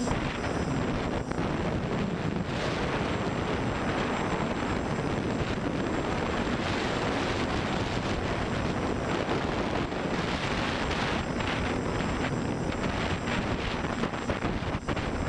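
A quadcopter's brushless motors and 10-inch propellers droning in flight, with wind rushing over the onboard microphone. The noise holds steady, with a faint hum that comes and goes.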